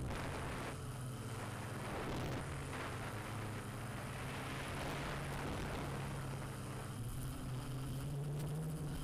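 A steady low motor hum that rises slightly in pitch near the end, over a steady hiss.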